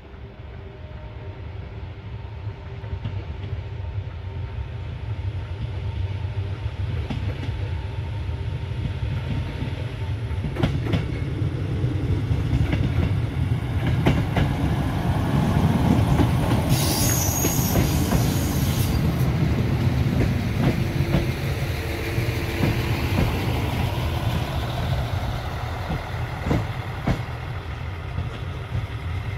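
RA2-class diesel multiple unit approaching and passing: its diesel engine rumble builds to a peak as it goes by, with wheels clacking over rail joints and points. A brief high-pitched squeal comes a little past the middle, then the rumble eases as the train moves away.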